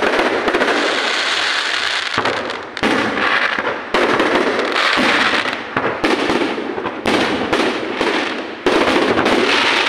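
Fireworks display: aerial shells bursting overhead in a dense, continuous barrage of bangs, with fresh loud volleys every few seconds.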